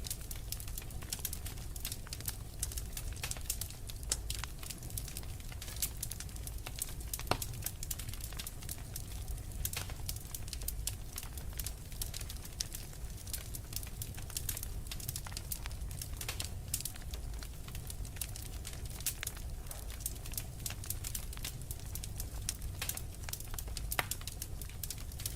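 Fire in a fireplace crackling and popping steadily, with many small crackles and a few louder pops, over a low steady rumble.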